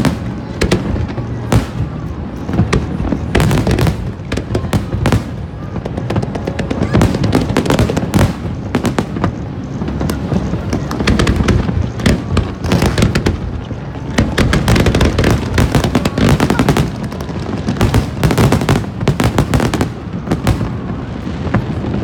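Aerial fireworks display: shells bursting in a rapid, continuous barrage of overlapping bangs, thickest around the middle and the last third.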